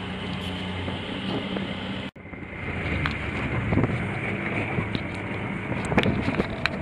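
Small boat's outboard motor running steadily, with wind buffeting the microphone. The sound cuts out abruptly for an instant about two seconds in, and a few sharp knocks come near the end.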